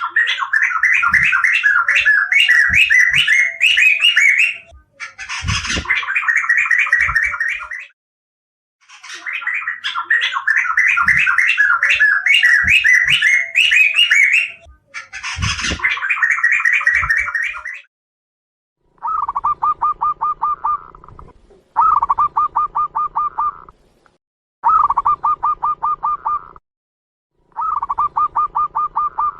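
Bird song in separate phrases of fast, rapidly repeated trilled notes, each lasting a few seconds. About two-thirds of the way through it changes to shorter, lower two-second bursts of rapid notes with a low hum under them.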